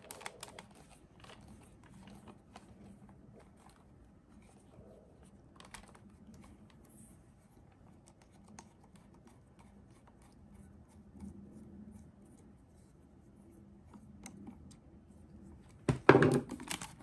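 A Phillips screwdriver turning out a screw from the plastic housing of a stick vacuum's dust bin, with faint scattered clicks and scratches. Near the end comes a short burst of louder clicking and clattering.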